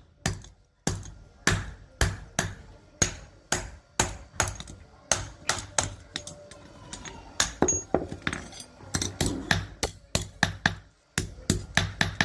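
Hammer striking repeatedly, about two blows a second at an uneven pace, each a sharp hit with a short ring, with a brief pause near the end.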